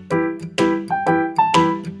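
Intro music: piano chords struck in a steady rhythm, about two a second, each ringing and dying away, with a light melody on top.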